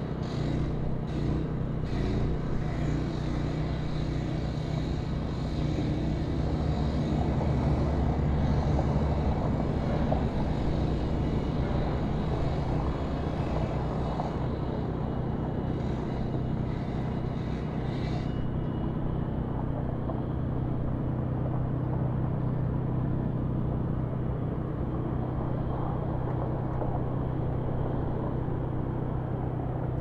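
Construction site ambience dominated by a heavy machine's engine running steadily, a low rumble with a steady hum. A few sharp knocks sound in the first couple of seconds and again a little past halfway, and the high hiss drops out suddenly soon after.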